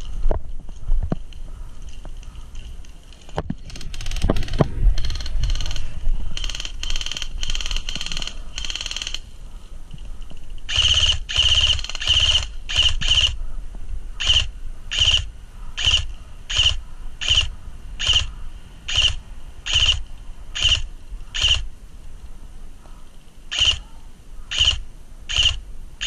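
Airsoft electric rifle firing a string of short bursts, roughly one a second, with a whine of the gearbox in each burst, starting about ten seconds in.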